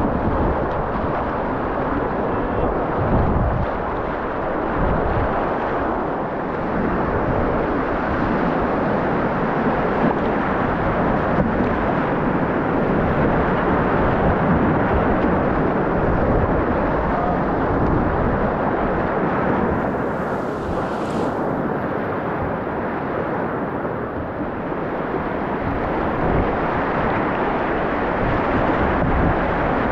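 Steady rushing of whitewater through a river rapid, heard close up from a kayak, with spray splashing near the microphone. A few low buffets hit the microphone about three to five seconds in.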